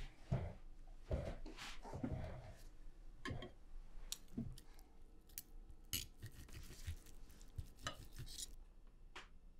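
Knife and fork scraping and clinking on dinner plates as steak is cut, in faint, irregular strokes.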